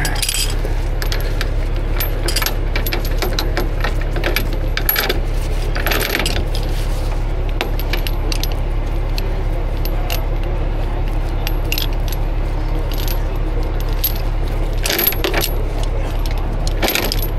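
Heavy alloy tow chain clinking and rattling link on link as it is handled and rigged by hand, in many short clinks with a few busier clusters. A steady low drone runs underneath.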